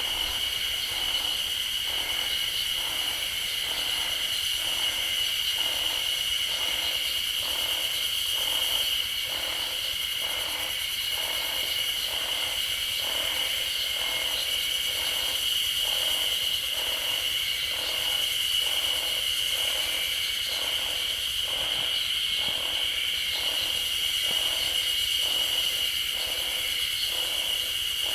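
Chorus of Ezo spring cicadas (Terpnosia nigricosta) singing: a steady high buzz with a regular pulsing beat of about one and a half pulses a second.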